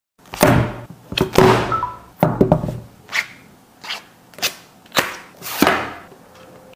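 Hands handling an iQOO Pad tablet and its packaging: about ten separate taps and thuds, some with a short rustle after them.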